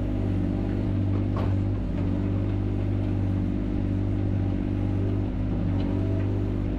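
Mini excavator's engine running steadily under work, with a faint knock or two from the digging.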